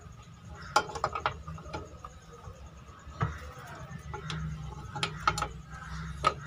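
Metal clicks and clinks of rear drum brake shoes and their return springs being handled and seated onto the brake backing plate, a scatter of separate sharp taps.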